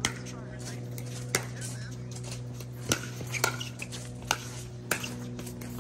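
Pickleball paddles striking a hard plastic pickleball in a rally: about six sharp, hollow pops at uneven intervals of half a second to a second and a half. A steady low hum runs underneath.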